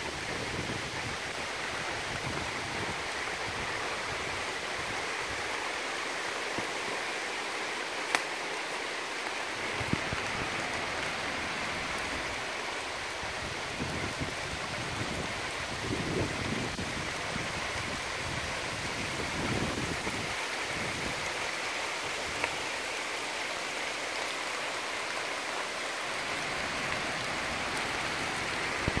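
A steady, even hiss of outdoor background noise, with a few faint sharp clicks and some soft low thumps.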